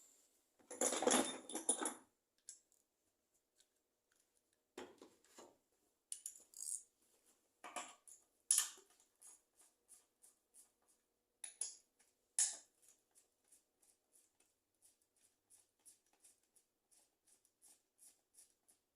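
Metal parts and tools being handled during hand disassembly of an automatic gearbox: a dense rustling clatter about a second in, then scattered sharp metallic clinks and taps, and light ticks about twice a second through the last few seconds.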